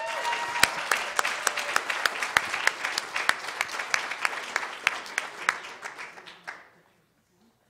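Audience applauding as a spelling bee winner is called up, a dense patter of hand claps that thins out and dies away about six and a half seconds in.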